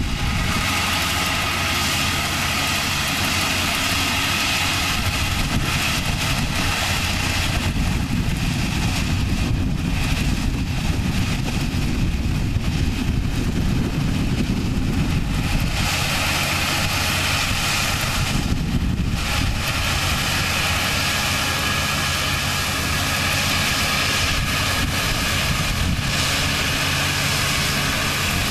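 ARN445 rice combine harvester running steadily as it cuts and harvests rice: a constant engine drone with the noise of the working cutting and threshing machinery.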